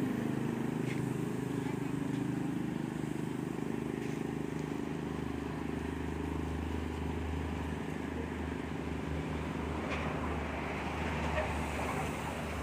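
A motor running steadily, a low hum that deepens and strengthens about five seconds in, with a few faint clicks.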